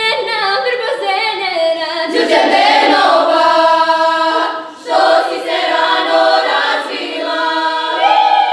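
Women's folk choir singing a Serbian folk song unaccompanied, in several voices, with long held chords and a brief breath pause about four and a half seconds in.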